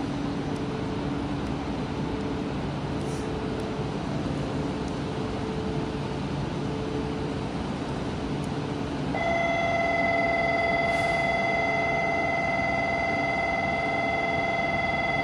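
Station platform departure bell starting about nine seconds in and ringing on as one steady electronic tone, the signal that the train is about to leave. Underneath, the steady hum of an E4 series Max Shinkansen standing at the platform.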